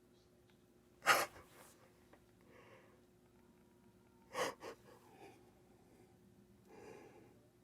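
A person's sharp breaths or gasps: a strong one about a second in and a quick double one about three seconds later, with softer breathing between.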